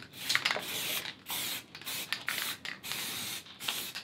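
Aerosol can of matte lacquer spraying in a series of short hissing bursts, about seven in four seconds.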